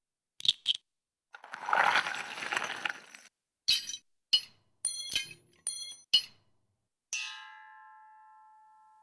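Forge samples of tools and steel played one after another from a Novation Circuit: two quick clicks, a noisy rush of about two seconds, a run of sharp metallic clinks, then a metallic ring of a few steady pitches that dies away slowly.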